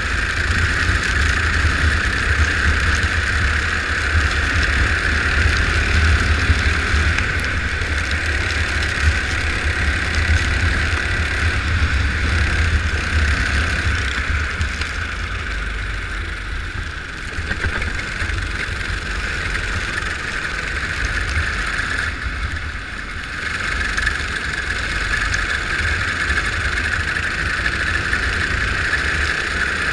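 Go-kart engine running steadily at racing speed, heard on board with wind rumbling on the microphone. It eases off briefly twice, about halfway through and again a few seconds later, then picks up again.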